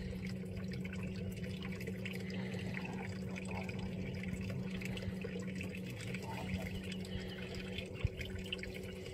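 Wet net rope hauled hand over hand out of the water, with water dripping and trickling off it back into the pond, over a steady low hum.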